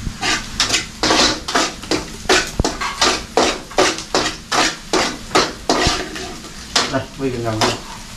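A metal spatula stirring and scraping in a cooking pan, about three strokes a second, as garlic is fried for a sour soup.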